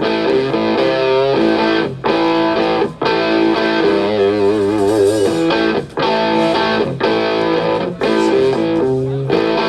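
Amplified electric guitar being played on its own at a band sound check. It plays ringing chords with a short break roughly once a second, and a wavering, bent note about halfway through.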